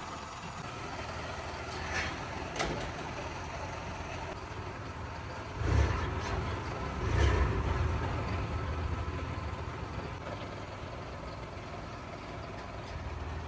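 Engine running with a steady low rumble and two brief louder surges a little past the middle, plus a couple of sharp clicks earlier on.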